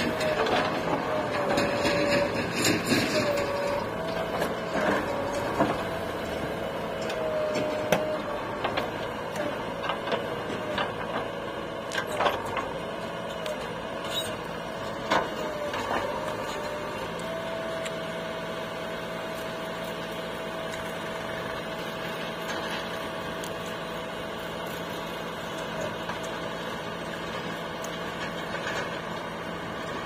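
JCB 3DX backhoe loader's diesel engine running under hydraulic load while the backhoe digs, its pitched whine wavering as the arm works and then holding steady from about halfway. Occasional sharp knocks and clanks in the first half.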